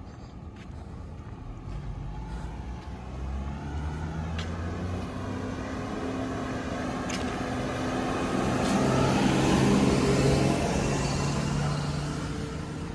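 A van drives past on a wet road: its engine and the hiss of its tyres on the wet surface grow louder to a peak about ten seconds in, then fade away.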